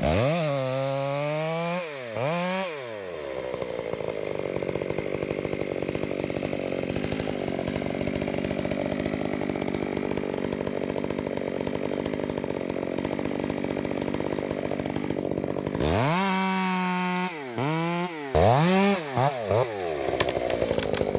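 Two-stroke chainsaw revving up and down a couple of times, then running steadily under load while cutting into a large tree trunk for about twelve seconds. Near the end it revs up and down several times more, then drops off.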